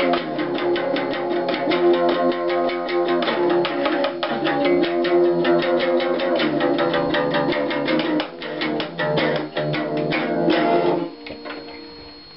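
Small acoustic guitar strummed quickly and steadily, several strokes a second. The strumming stops near the end and the last chord is left to ring and fade.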